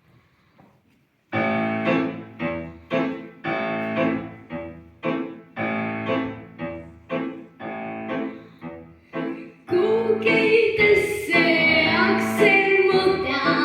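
Piano accompaniment opening the song with struck chords repeated about twice a second. About ten seconds in, a young female voice comes in singing over it.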